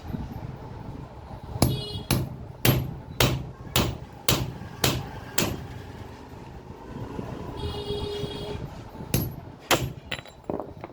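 Hammer blows driving a chisel on metal: eight sharp strikes at about two a second, a pause with a brief ringing tone, then three more strikes near the end.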